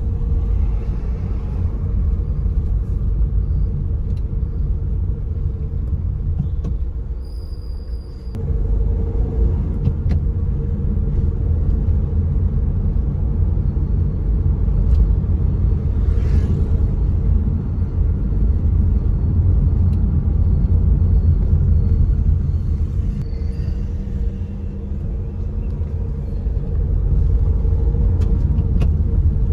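Steady low road and engine rumble inside a moving car's cabin, with a constant hum, briefly dropping about eight seconds in.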